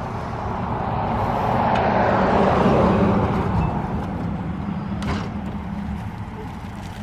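Road noise of a car or truck being driven, a steady low rumble with a rushing swell that peaks about two to three seconds in and then eases off.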